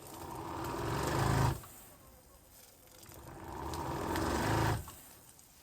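Softwash pump motor running in two short bursts. Each builds for a second or two and then cuts off abruptly as the pressure switch trips. The switch is activating at too low a pressure, before the pump reaches full output.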